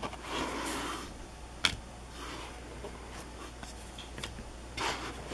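Cardboard trading cards being handled and shuffled through by hand: dry rubbing and sliding of card on card in a few short passes, the longest near the start and another near the end, with one sharp click about a second and a half in.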